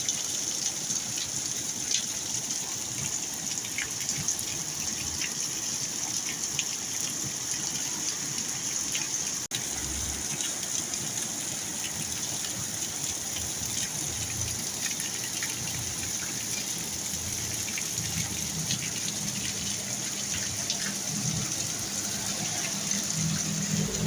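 Heavy rain falling steadily during a storm, with water gushing and scattered drop ticks. A low steady hum builds in over the last few seconds.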